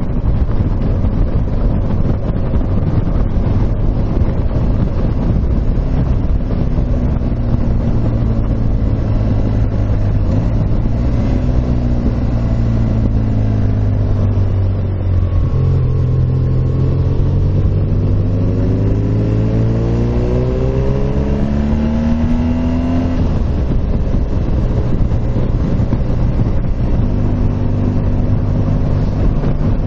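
Motorcycle engine running under way, with wind noise on the microphone. About halfway through, the engine note rises steadily for several seconds as it accelerates, then drops back to a steady drone.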